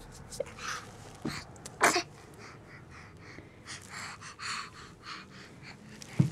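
A seven-month-old baby doing a fake sneeze: a short, sharp puff of breath about two seconds in, then several softer breathy puffs. A sharp knock comes near the end.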